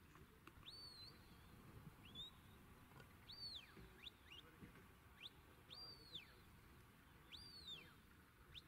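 Faint shepherd's whistle commands to a working sheepdog: a run of high whistles, some rising and falling in an arch, others quick short upward flicks, repeated about every second. Low wind rumble underneath.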